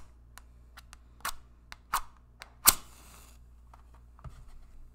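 A wooden match is struck on a matchbox close to the microphone: sharp scrapes at intervals of under a second. The match catches on the third and loudest strike with a short flaring hiss.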